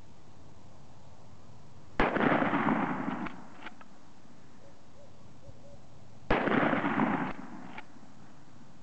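Two 12-gauge shotgun blasts from a New England Firearms Pardner pump, about four seconds apart, each trailing off in a rolling echo for about a second. Shortly after each shot comes a double clack, the pump action being worked back and forward to chamber the next shell.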